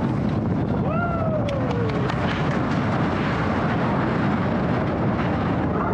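Expedition Everest roller coaster heard from a seat on the moving train: a steady rush of wind and the rumble of the train on its track. A rider gives a long falling scream about a second in, and more screams start near the end.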